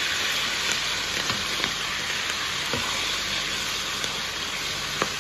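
Marinated chicken pieces sizzling steadily in hot oil in a wok, searing to a golden-brown crust, with a few faint clicks.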